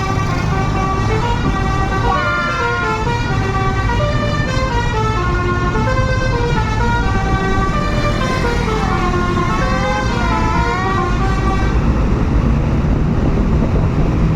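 Bus telolet horn playing a warbling multi-note melody, its tones stepping and gliding up and down, over a steady low vehicle rumble. The melody stops about twelve seconds in, leaving only the rumble.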